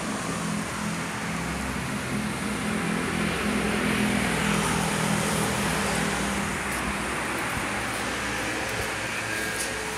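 A car driving past: rushing road and engine noise that swells to its loudest about four to five seconds in and then fades, over a steady low hum.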